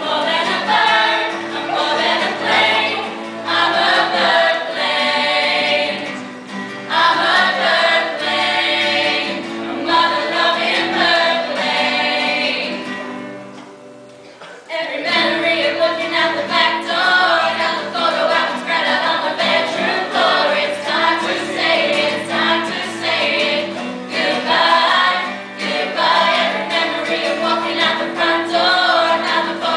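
A small group of young voices singing together to acoustic guitar strumming. About halfway through the music dies down to a brief pause, then the singing comes back in.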